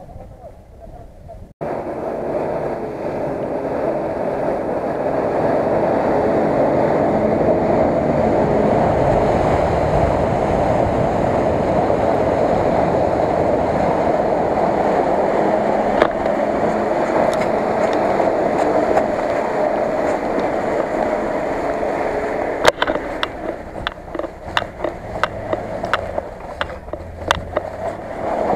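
Off-road vehicle engine running steadily under load, mixed with a dense rushing noise. From about two-thirds of the way through it drops back a little, and a run of sharp knocks and clicks comes in.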